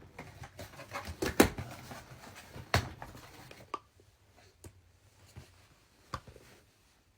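Scattered light knocks and clicks of objects being handled, loudest about one and a half seconds in and again near three seconds, then sparser and quieter.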